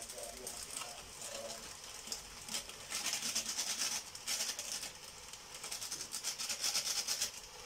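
Rice flour pouring from a plastic packet into a steel bowl, the packet crinkling as it is shaken, in irregular hissing spurts.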